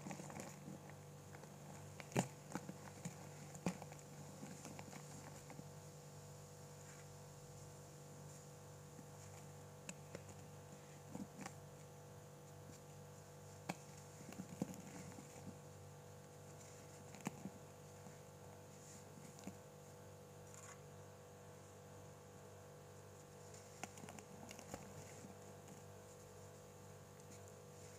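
Soft, scattered crunches and crumbling as pressed baking soda discs are squeezed and broken apart by hand into a bowl of cola, a few seconds apart.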